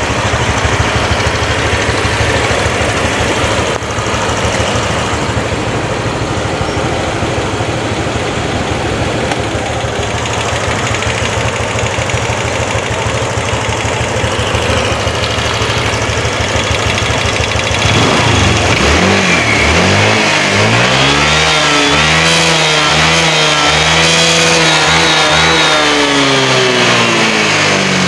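A healthy Honda Vario 150 scooter's single-cylinder four-stroke engine, heard at the exhaust, idles steadily. About eighteen seconds in, the throttle is opened: the engine revs up, holds, and drops back near the end.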